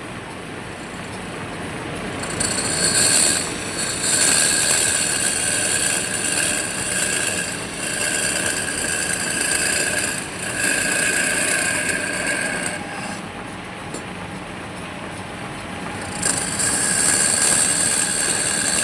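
A power woodworking machine cutting wood. A high whine rises during each cut, in several passes of a few seconds each, with quieter gaps between.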